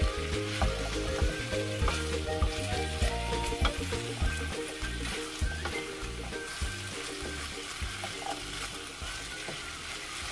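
Food sizzling in a frying pan while being stirred, with scattered clicks of a utensil against the pan, over background music.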